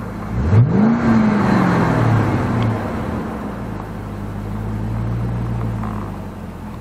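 Chevrolet Colorado's 5.3-litre V8 revved once about half a second in: the pitch climbs quickly, then sinks back over a couple of seconds. It then runs steadily at a low idle.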